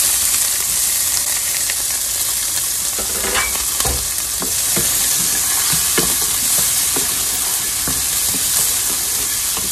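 Chopped red onion frying in hot oil in a pan, a steady sizzling hiss, stirred with a wooden spoon that gives a few light taps against the pan.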